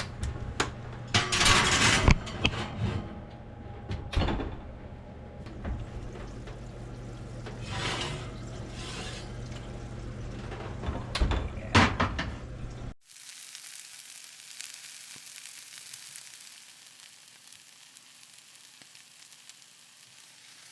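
Kitchen handling sounds from putting a baking dish into the oven: scattered knocks and clatter of dish and oven, over a steady hum. After an abrupt cut, a quieter steady hiss of a hot dish sizzling.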